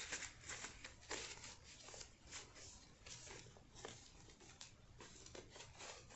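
Paper dollar bills being counted by hand: faint, crisp paper flicks and rustles as the notes are peeled off the stack, irregular, a couple a second.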